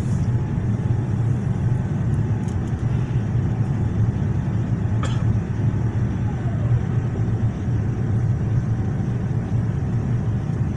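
Boeing 787 cabin noise on approach: a steady low rumble of airflow and engines, with a faint thin whine of the wing flaps extending. There is a single sharp click about five seconds in.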